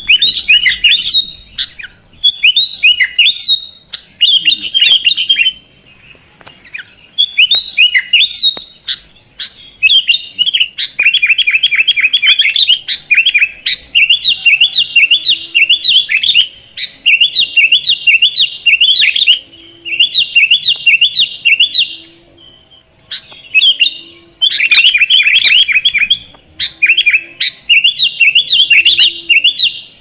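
Sooty-headed bulbul (kutilang) singing in long runs of fast, chattering, quickly rising notes, broken by short pauses.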